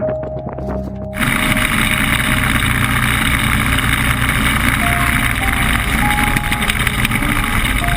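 Background music with a thin held melody, and a loud steady rushing noise that cuts in suddenly about a second in and then runs on under it.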